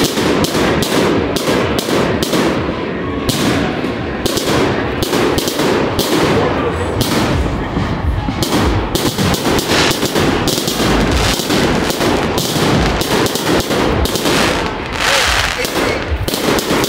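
Fireworks finale: a dense, continuous barrage of aerial shells and cakes going off, many bangs and crackles a second with no pause.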